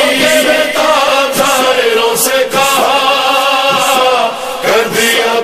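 Voices chanting an Urdu nauha, a Muharram lament, in long held, wavering notes.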